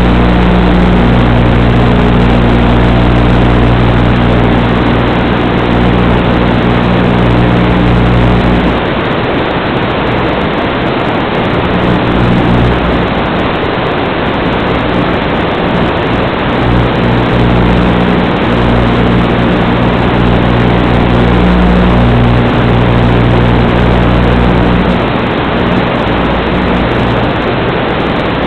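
Loud steady static hiss with a low hum of several steady pitches: the audio track of an analog FPV video receiver's DVR recording, not the quadcopter itself. The hum breaks up and turns rough for several seconds about a third of the way in while the video signal breaks up.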